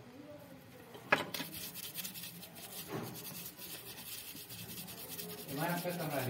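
A brush scrubbing over a Nokia keypad phone's circuit board to clean it: a click about a second in, then quick, even brush strokes.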